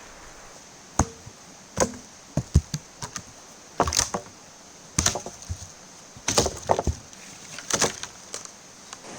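Firewood being broken up: a series of sharp woody knocks and cracks, irregularly spaced, some coming in quick clusters.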